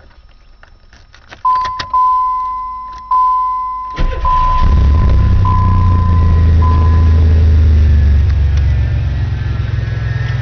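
Keys rattle at the ignition and the car's warning chime dings about once a second, then the engine starts about four seconds in and runs at a steady fast idle that eases slightly near the end.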